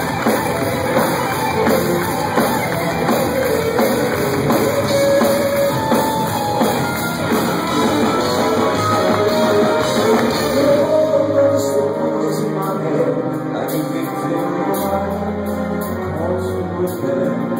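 A symphonic power metal band playing live: distorted electric guitars and a pounding drum kit, with a male singer's voice over the top. The band gets slightly quieter past the middle.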